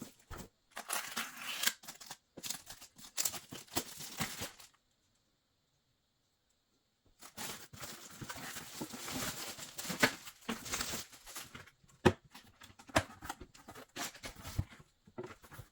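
Packaging of a new toilet seat being cut and torn open by hand, with tearing and crinkling. The sound stops for a couple of seconds about five seconds in, then the rustling and handling carry on with a few sharp knocks.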